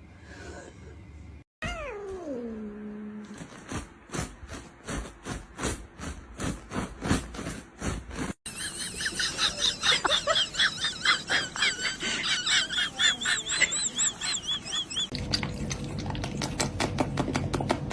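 A cat meowing, with one long falling call about two seconds in, followed by other short pet sounds: a run of evenly spaced clicks, then quick repeated high calls.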